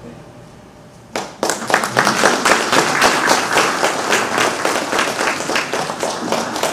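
Audience applauding, starting suddenly about a second in: many hands clapping at once.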